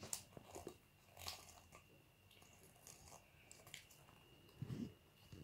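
Near silence with a few faint clicks and rustles and a brief soft crackle near the end, over a faint steady high whine.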